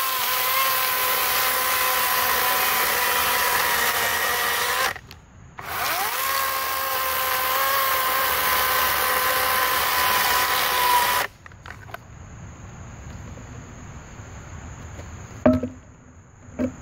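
Greenworks 40-volt GMax brushless cordless chainsaw cutting through a log: the electric motor's whine rises as it spins up and runs steadily through the cut for about five seconds, stops briefly, then spins up and cuts again for about six seconds before cutting off suddenly. A couple of sharp knocks follow near the end.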